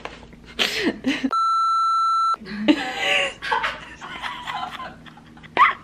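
An edited-in censor bleep: a steady high-pitched beep lasting about a second, with all other sound cut out beneath it.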